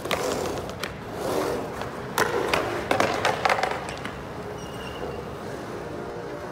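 Skateboard rolling on a concrete bowl, with sharp clacks and knocks from the board, several of them between about two and three and a half seconds in, then quieter rolling.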